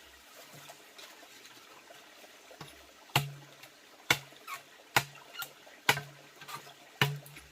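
Faint trickling water, then sharp knocks from about three seconds in, struck roughly once a second, each with a short low ring after it.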